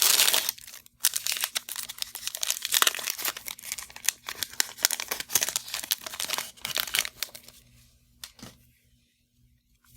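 A trading card pack's plastic wrapper being torn open, with a sharp tear at the start and then crinkling and rustling for about seven seconds before it goes quiet near the end.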